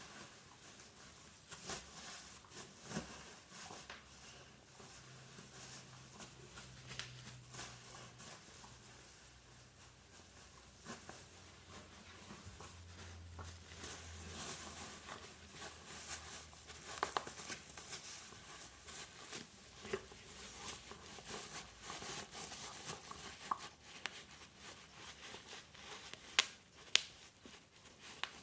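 Plastic bubble wrap crinkling and rustling as a dog plays with it, with scattered sharp pops of bubbles bursting; the loudest pops come about two-thirds of the way in and in a cluster near the end.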